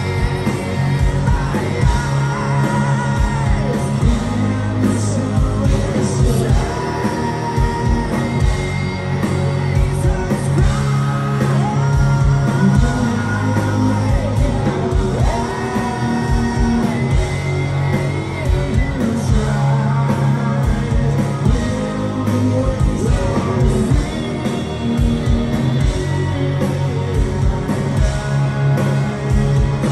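Live rock band playing loudly: electric guitars, bass and drums with sung lead vocals.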